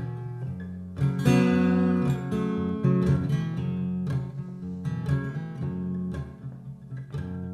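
Acoustic guitar music, strummed and picked.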